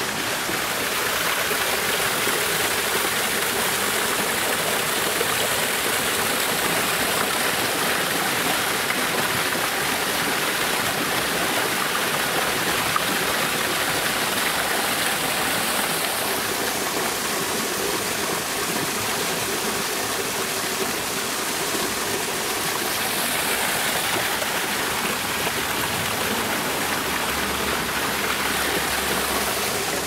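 Waterfall running: a steady, even noise of falling and flowing water with no breaks.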